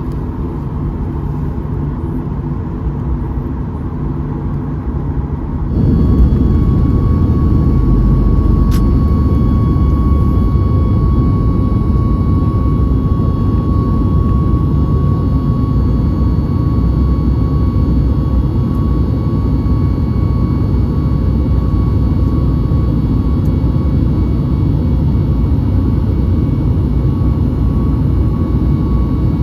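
Steady low rumble of jet engines and airflow inside the cabin of a Boeing 737 MAX. About six seconds in it jumps suddenly to a louder, fuller rumble, with a faint steady whine above it.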